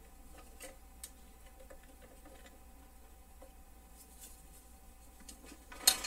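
Faint clicks and taps of a metal head-cover plate being handled and slid off a reel-to-reel tape deck's head assembly, with one sharp click near the end.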